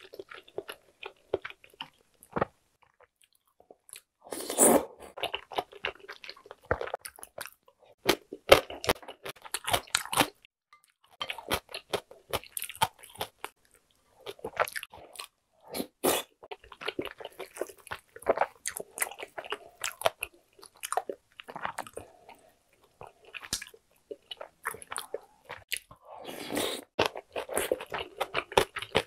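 A person chewing and biting mouthfuls of spicy tteokbokki (chewy rice cakes in sauce), giving many sharp mouth clicks in irregular runs, broken by a couple of brief pauses.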